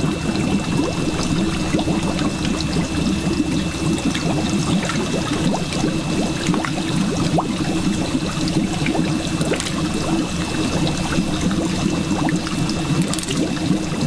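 Water pouring and splashing steadily into a fish tank, with small splashes from fish moving in shallow water in a mesh net as a hand stirs them. A thin steady whine runs underneath.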